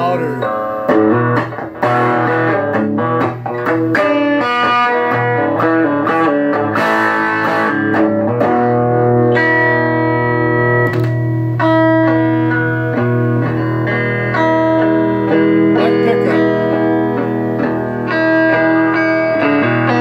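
Electric guitar played through a chain of effects pedals into a handbuilt Blues Howler tube amp. Quick picked notes and short chord stabs for about eight seconds, then held chords left to ring.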